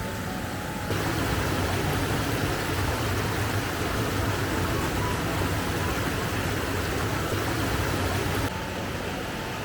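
Steady rush of flowing creek water. It cuts in louder about a second in and drops back suddenly near the end.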